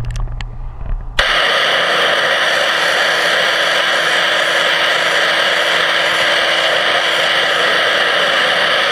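High-pressure water jet from a pressure-washer wand fired underwater, cutting in suddenly about a second in and then hissing loudly and steadily as it blasts the inside of a stainless-steel suction intake. Before it starts, a low hum with a few light clicks.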